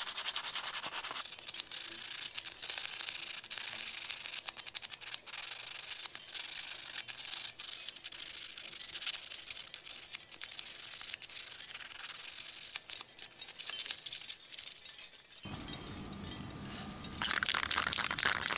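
A small finger-bike frame rubbed on 400-grit sandpaper in quick, dry, scratchy strokes. Near the end the sound cuts to outdoor air noise, and then a spray paint can starts with a steady loud hiss.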